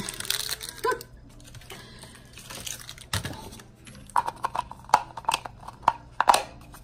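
Small plastic toy packaging being handled: a crinkling rustle near the start, a knock about three seconds in, then a quick run of light clicks and taps.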